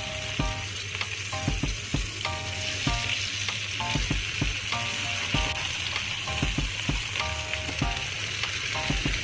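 Shrimp and chopped aromatics sizzling steadily in hot oil in a frying pan while a silicone spatula stirs them.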